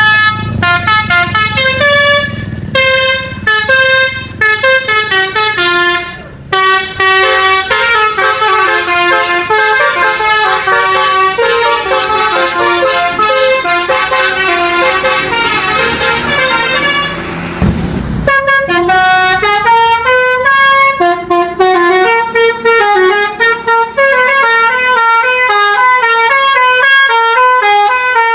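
Basuri telolet musical horn on a tour bus playing quick tunes of short stepped notes, one melody after another, loud throughout. A low rumble runs under the first few seconds, and a brief hiss breaks in about two-thirds of the way through before the tunes carry on.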